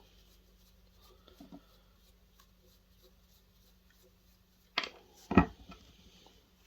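Two sharp knocks about half a second apart, a little before the end, with a few faint clicks earlier: tools and parts being handled while components are stripped off a projector circuit board. A faint steady hum sits underneath.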